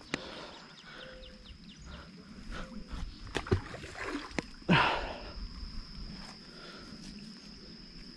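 Outdoor lakeside ambience with a steady high-pitched insect trill throughout, a few sharp clicks, and one louder short rushing noise about five seconds in.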